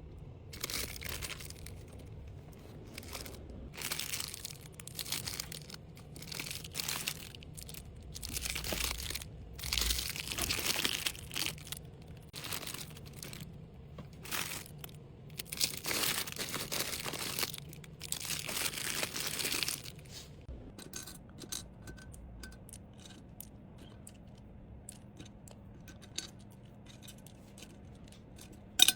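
Packaging being handled, crinkling and rustling in a run of short bursts for about twenty seconds, then only a few light clicks and taps.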